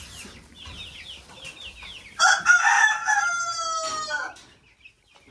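Young chicks peeping all through, with many short falling peeps. About two seconds in, a loud rooster crow runs for about two seconds, its pitch sliding slightly down as it trails off.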